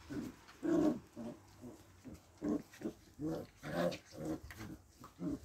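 Young dogs growling and grunting in play: a string of short, low sounds, about two a second.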